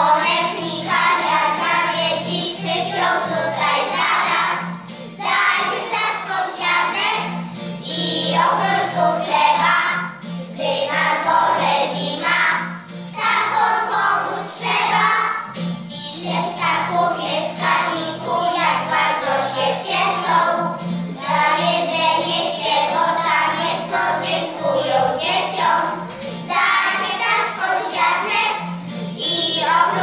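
A group of young children singing a Polish children's song together in unison, in phrases with short breaths between them.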